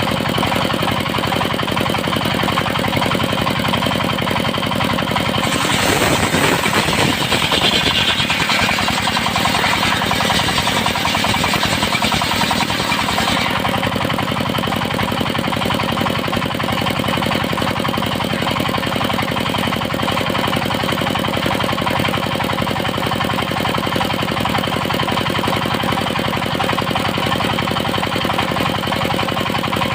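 Engine-driven circular sawmill running steadily with a fast knocking beat. From about six seconds in until about thirteen seconds a harsh, hissing cutting noise rides on top as the blade rips through teak, then the machine runs on without load.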